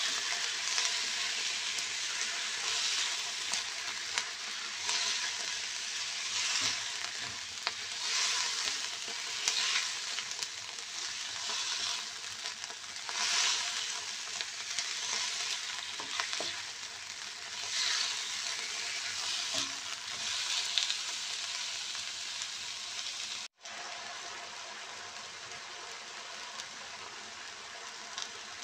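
Chicken gizzards with onion and ginger sizzling in a nonstick wok while a spatula stirs them, the sizzle swelling with each stroke every second or two. After a brief dropout near the end, the sizzle carries on steadier and a little quieter.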